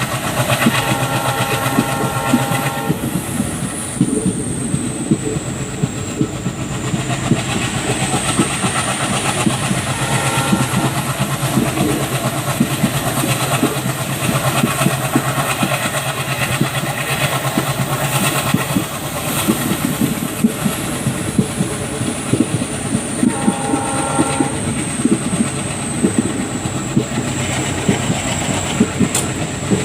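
WDG3A ALCO diesel locomotive under way, heard from a coach close behind it: the engine chugs steadily and the wheels clatter over the rail joints. The locomotive's multi-tone horn sounds three times: for about two seconds at the start, briefly about ten seconds in, and again about two-thirds of the way through.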